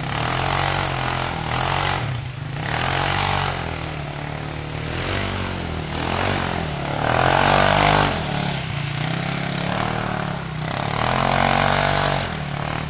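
Off-road buggy engine revving, surging and dropping back several times as it works along the trail. The loudest surge comes about seven to eight seconds in.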